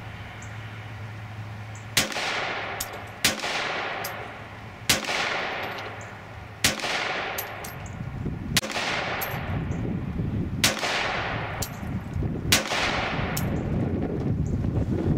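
SIG P238 .380 pistol fired seven times in a steady string, a shot every one and a half to two seconds, each report followed by a trailing echo.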